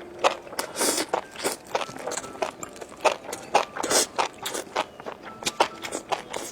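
Close-up chewing of crunchy fried food: an irregular run of crisp crunches and clicks, several a second.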